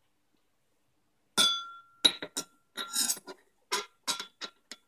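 A stainless steel sink-strainer stopper set down in a glazed ceramic bowl. There is one ringing clink about a second and a half in, then a quick series of further clinks and taps as it is settled in the bowl.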